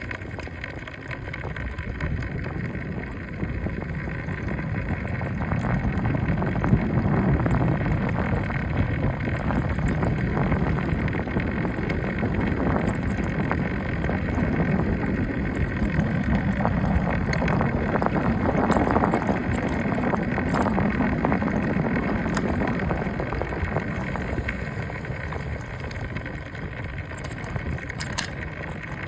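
A vehicle in motion, its front wheel rattling over steady road and engine noise that gets louder for most of the middle and eases off near the end. The rattle has been there from the first day, per the owner.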